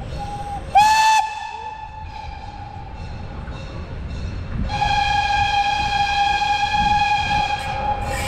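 Locomotive whistle: a short blast about a second in, then a long steady blast from about halfway until just before the end, both on one pitch, over a low rumble.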